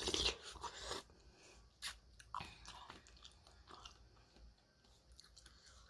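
Close-up mukbang eating of noodles: a loud mouthful taken off a plastic spoon in about the first second, then chewing with scattered small mouth clicks.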